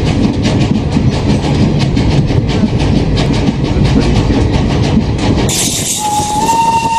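Fairy Queen steam train running, heard from aboard, with a fast rhythmic clatter over a rumble. About five and a half seconds in the sound changes and a steady whistle tone sounds, stepping slightly up in pitch.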